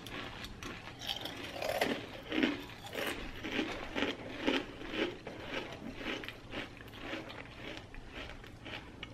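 Mouth chewing a handful of dry Frosted Flakes, Froot Loops and crunchy cereal marshmallows, crunching in a steady rhythm of about two chews a second.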